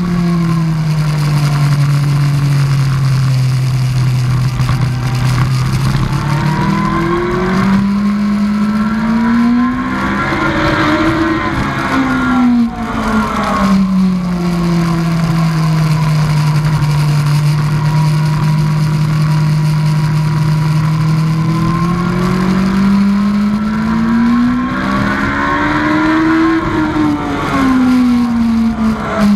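2003 Yamaha R1 inline-four engine on track, heard from a helmet camera with rushing wind. The engine note sinks and holds steady, climbs under acceleration to a peak about ten seconds in, drops back and runs steady, then climbs and falls again near the end.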